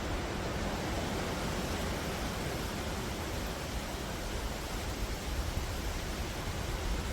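Wind blowing steadily through forest trees, a continuous rushing of leaves and branches with a low rumble of wind on the microphone.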